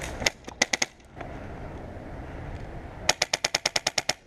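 Airsoft gun firing: four quick shots in the first second, then a rapid burst of about a dozen shots near the end, about ten a second.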